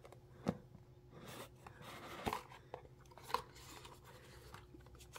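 Small rigid cardboard box opened by hand, the lid sliding off: soft rubbing and scraping of cardboard with three light taps.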